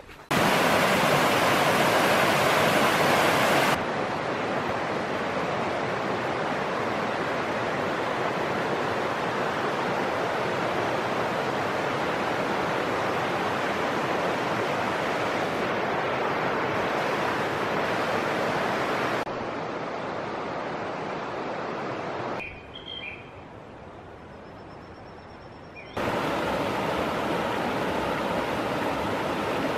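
Steady rush of the Ebro river running over shallow rapids, jumping abruptly in loudness several times. In a quieter stretch about three-quarters of the way through, a few short bird chirps.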